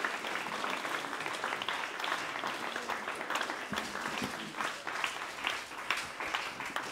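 Applause from a small audience: many hands clapping at a steady level.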